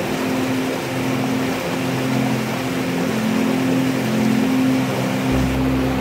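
White water rushing over rocks in a forest cascade, a steady full hiss, with soft background music of held low notes underneath; a deeper bass note comes in near the end.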